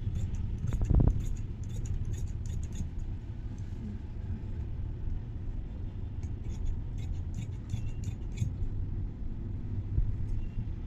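Large tailor's shears cutting through fabric and its lining together: a run of crisp snips in the first few seconds and again about two-thirds of the way in, over a steady low hum.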